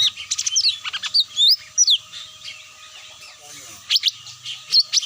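Cucak mini bird lure call: quick, high, sweeping chirps in a fast string. The chirps break off about two seconds in and start again near the end. A faint low hum runs under them.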